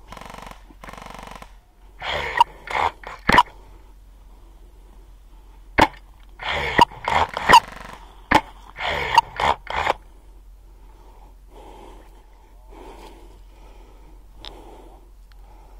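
Breathy huffs close to the microphone, broken by about eight sharp clicks and snaps in the first ten seconds: the sounds of an airsoft rifle being handled and fired. After about ten seconds only faint rustle remains.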